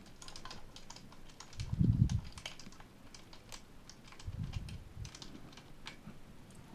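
Small irregular clicks and ticks of a tool working the scope-mount screws on a Snow Wolf M24 airsoft rifle, with a couple of dull thumps of the rifle being handled.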